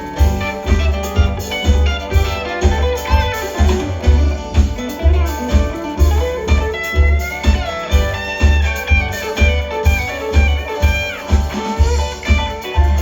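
Live band playing an instrumental passage: a guitar line with bending notes over a steady low drum and bass beat of about two hits a second.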